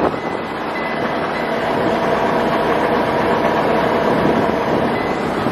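Semi truck's diesel engine idling, heard from inside the cab as a steady noise, while the air system is still building pressure. The engine is believed to be a PACCAR motor.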